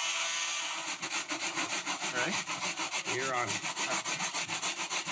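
Plastic scraper rubbing back and forth over pink extruded foam, clearing loose chips from a freshly routed pit in quick strokes, about four or five a second. A router's whine dies away in the first second.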